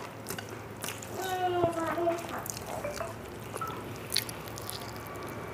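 Wet squishing and clicking of fingers kneading boiled rice with dal on a steel plate, with mouth smacks near the end as a handful is eaten. A short hum-like voice sound comes about a second in.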